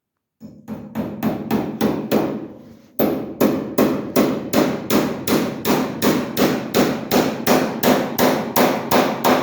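Hammer striking repeatedly at about three blows a second: a short run, a brief pause, then a long steady run of blows.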